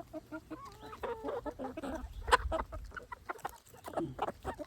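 A flock of backyard chickens clucking over scattered treats, with many short calls overlapping. A sharp tap about two seconds in is the loudest sound.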